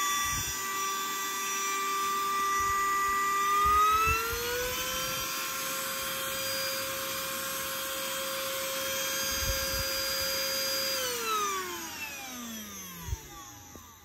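DriveMo cordless handheld vacuum's motor running with a steady high whine. About four seconds in the pitch rises and holds, then about eleven seconds in the whine falls away as the motor winds down. A few light knocks come from handling, the sharpest near the end.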